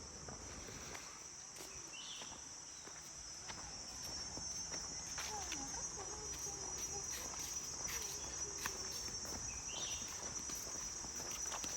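Forest insects droning steadily at a high pitch, with scattered footstep crunches on the trail and a few faint short calls.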